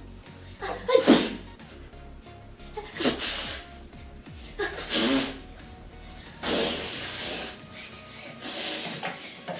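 A person sneezing repeatedly, about five sneezes a second or two apart, the one near seven seconds longer and more drawn out. Background music plays underneath.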